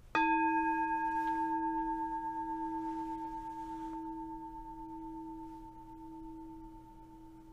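A singing bowl struck once, ringing with a strong low tone and a few fainter higher overtones. The ring fades slowly over several seconds, with a steady wavering in its loudness.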